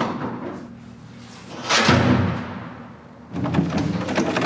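A sudden loud bang about two seconds in, dying away over about a second, followed by a run of short knocks and clicks near the end.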